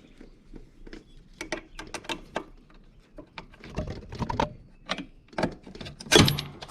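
Irregular metallic clicks and clinks of a retaining clip being worked off the front lift link pin of a mower deck, with a louder clank about six seconds in.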